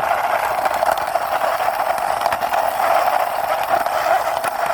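Steady buzzing engine-like drone, like a small motorbike engine, while a toy motorbike is pushed along by hand.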